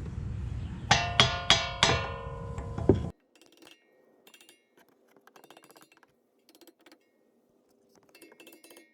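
About six quick mallet taps on a brake pad, seating it in the caliper bracket, each strike followed by a metallic ring. After about three seconds the sound drops suddenly to near silence, with only faint ticks.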